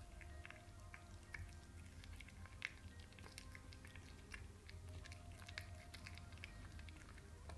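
Cat chewing a piece of raw chicken: faint, irregular wet clicks and smacks, with one sharper click about two and a half seconds in.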